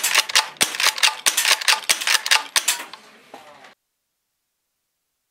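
A rapid, irregular run of sharp clacks, about five a second, which fades and cuts off abruptly about three and a half seconds in, leaving dead silence.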